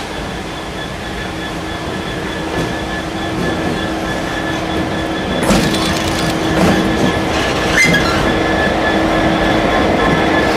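Class 66 diesel locomotive's two-stroke EMD V12 engine running as it draws up close and passes, growing steadily louder. A few sharp clanks and squeals from the wheels on the rails come between about five and eight seconds in.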